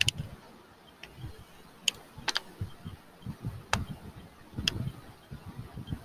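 A handful of sharp, irregularly spaced clicks, about six in all, with soft low thumps between them.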